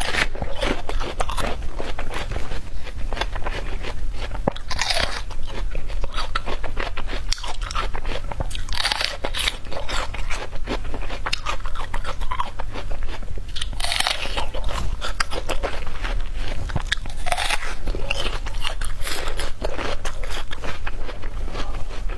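Close-miked crisp bites into wax apple, several a few seconds apart, with crunchy chewing between them.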